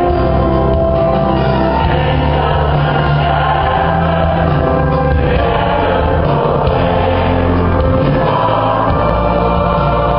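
Large church choir singing in sustained, held chords over low notes that change every couple of seconds.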